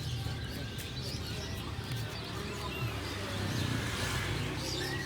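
Small birds chirping in short repeated calls over a background murmur of indistinct voices.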